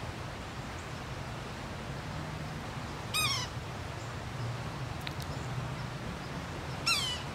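Yellow-bellied sapsucker giving its mewing, cat-like call twice, each call short and about four seconds apart.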